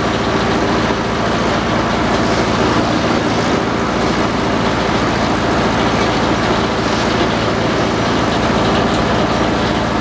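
Antique belt-driven circular sawmill running: the big saw blade spinning and the flat belts turning the friction-feed pulleys, a steady, loud mechanical noise with a low hum under it.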